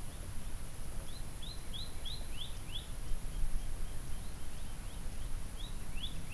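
A bird calling a quick series of down-slurred whistled notes, about three a second, in two bouts, over a steady high thin whine and a low rumble of outdoor background noise.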